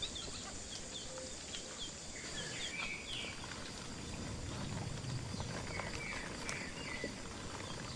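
Outdoor ambience with short, high-pitched animal chirps repeating all through, and a few light clicks.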